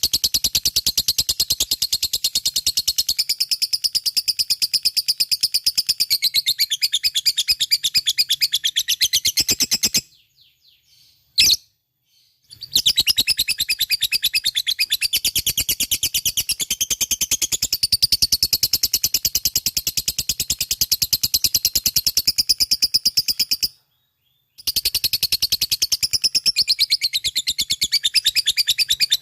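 Lovebird singing its long, rapid chattering trill, the 'ngekek' song, in a fast unbroken string of high notes. It stops twice for a moment of silence, and a single sharp click falls in the first gap.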